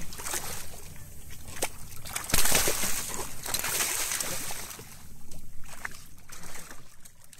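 Sea water sloshing and splashing as hooked fish break the surface and churn the water, with the loudest splash about two and a half seconds in.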